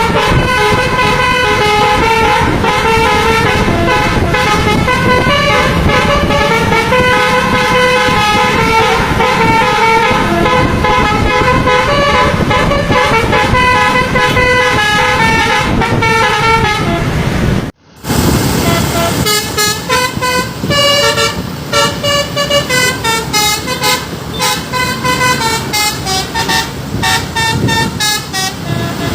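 A Tunggal Jaya bus's telolet basuri horn, a multi-tone musical bus horn, playing a running melody of stepping notes. The sound breaks off abruptly about eighteen seconds in, then resumes with shorter, choppier notes.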